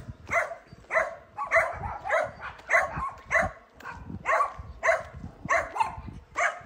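A dog barking repeatedly at a stranger, about two short barks a second.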